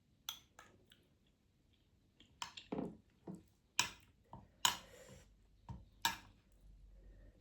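Close-miked eating: irregular wet chewing smacks and mouth clicks.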